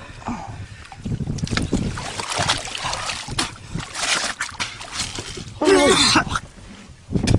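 Water sloshing and splashing, with many irregular knocks and rustles, as people wade and work in the water. A short wavering voice cry comes about six seconds in.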